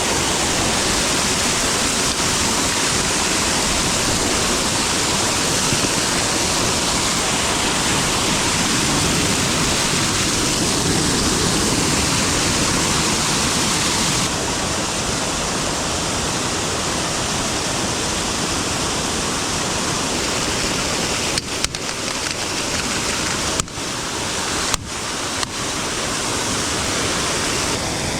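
Rushing water, a steady full hiss like a waterfall or fast stream, with a few brief dips in level near the end.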